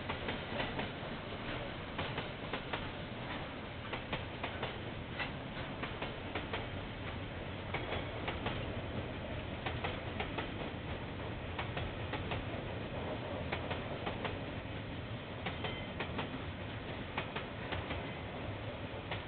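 Train rolling past, heard through a security camera's microphone: a steady rumble with many irregular clicks from the wheels on the rails.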